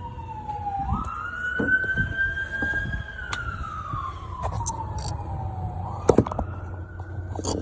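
Emergency vehicle siren wailing: one tone sweeping slowly up and down in long cycles, jumping back up about a second in and again about six seconds in. A low rumble runs underneath, with a few sharp clicks about six seconds in.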